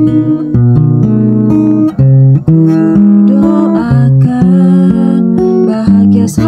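Music led by acoustic guitar: plucked and strummed notes changing every half second or so over a steady bass line.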